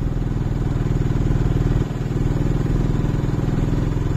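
Motorcycle engine running at a steady pitch while riding along, with a brief dip about halfway through.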